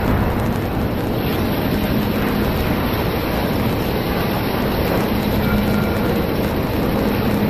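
CNC gantry drilling and milling machine running: a steady mechanical noise with a constant low hum.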